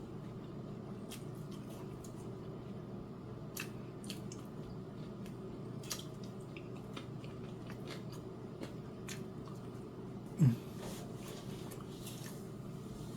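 Chewing close to the microphone, with small scattered mouth clicks over a steady low hum. About ten seconds in there is one short, loud sound whose pitch falls.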